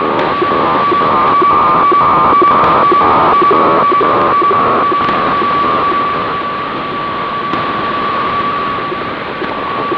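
HF weather-fax (Wefax) signal from NOAA on 12.785 MHz upper sideband, received on a Grundig 750 shortwave radio: a steady tone over static with a rhythmic pulsing from the scanned image lines. About halfway through, the pulsing weakens to a steadier tone and hiss as the signal fades.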